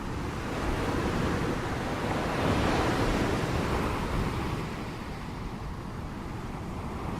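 Ocean surf: waves breaking and washing in a steady rush of noise. The surge swells about two and a half seconds in, eases off, and starts to build again near the end.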